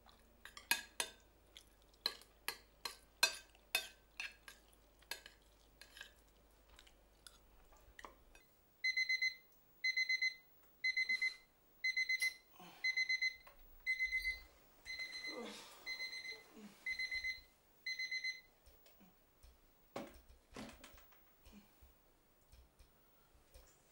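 A series of sharp clicks and knocks, then an electronic alarm beeping: a high, rapidly pulsed beep repeating about once a second for some ten seconds before stopping, followed by a few more knocks.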